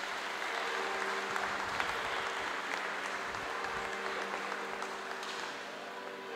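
Audience clapping in applause, steady at first and tapering off towards the end.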